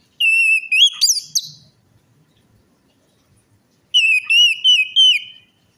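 Orange-headed thrush singing: two loud phrases of clear whistled notes. The first starts just after the beginning and ends about a second and a half later with a quick upward sweep. The second, about four seconds in, is a run of short wavering notes.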